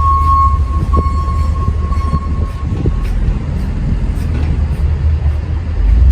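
City street noise: a heavy, steady low rumble with a single steady high tone that stops about three seconds in, and scattered faint knocks.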